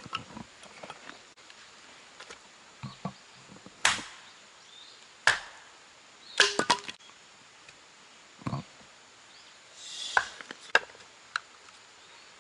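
Firewood being chopped and split: a series of sharp wooden strikes at irregular intervals, with a quick run of three blows about six and a half seconds in.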